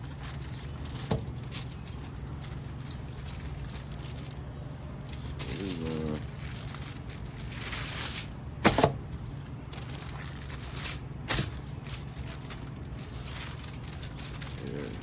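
Steady high-pitched insect chorus, with a low steady hum beneath it and a few sharp knocks, the loudest about two-thirds of the way through.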